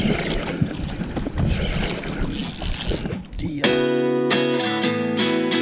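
Wind and water noise aboard a small outrigger boat at sea. About three and a half seconds in, acoustic guitar music starts and carries on.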